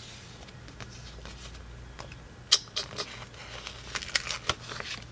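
Paper planner stickers being handled and a sticker peeled off its backing sheet: a quick run of sharp paper clicks and crackles in the second half, with the loudest snap about halfway through.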